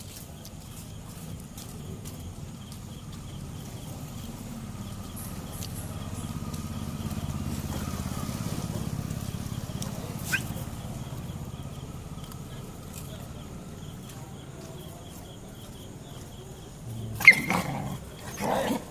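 A dog growling low and continuously, louder in the middle, then two short, loud barks or yelps near the end.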